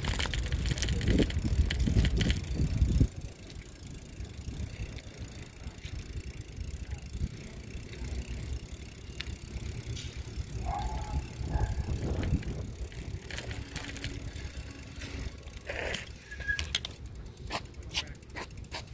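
Bicycle riding with a camera mounted on the bike: a low rumble of road and wind, loudest for the first three seconds, with the bike's rattles and a run of sharp clicks near the end.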